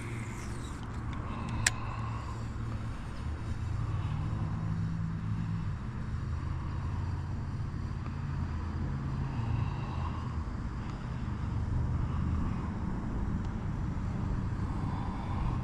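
An engine running steadily with a low hum, its pitch shifting slightly now and then; a single sharp click about two seconds in.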